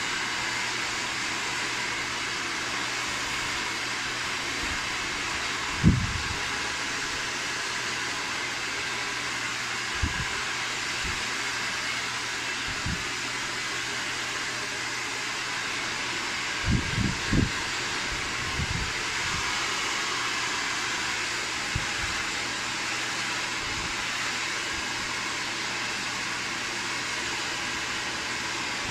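Hair dryer blowing steadily, a constant airy hiss, with a few brief low thumps, the loudest about six seconds in and a short cluster a little past halfway.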